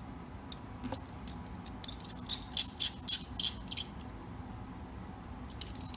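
A quick run of small, sharp clicks and light rattling from small hardware being handled: about ten ticks bunched together for about two seconds, with a few scattered ones before and after.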